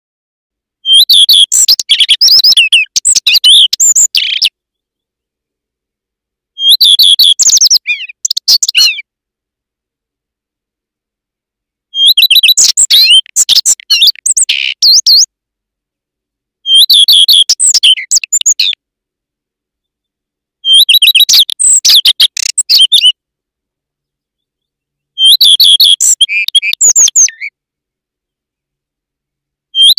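Male common redstart singing: six short song phrases, each opening with a few clear high notes and running into a quick, varied twitter, with silent pauses of a few seconds between them.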